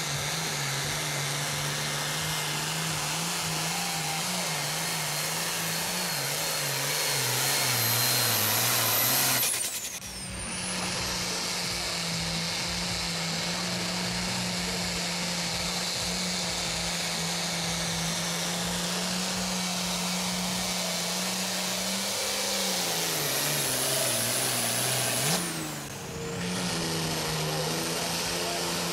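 Pulling tractors' diesel engines running flat out under load, one run after another. Each engine's note sinks lower as it bogs down toward the end of its pull, with a high whine above it. The sound cuts abruptly to the next tractor twice, about 10 and 26 seconds in.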